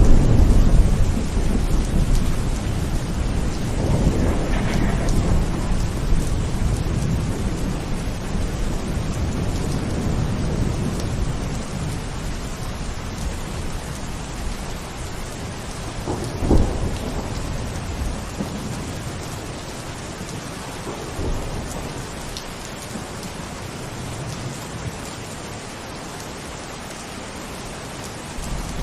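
Thunderstorm: steady rain with rolling thunder. A loud low rumble at the start dies away, another roll swells about four seconds in, and a sharper clap comes about sixteen seconds in. The storm grows gradually quieter toward the end.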